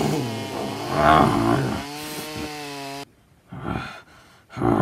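Chainsaw sound effect: a chainsaw engine revs, then runs at a steady pitch and cuts off abruptly about three seconds in. Two short low sounds follow near the end.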